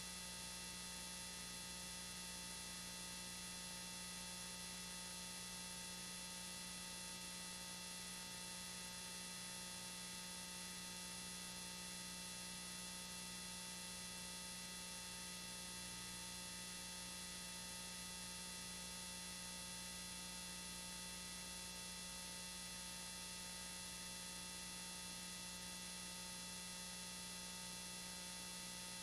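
Steady electrical hum with a whine of several fixed tones over constant hiss, and nothing else on the track: the sound fault of an old home-video recording.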